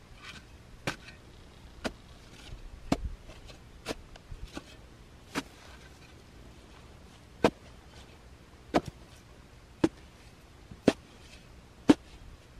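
Steel spade chopping into grassy soil and roots: a series of sharp chops about once a second, louder from about seven seconds in.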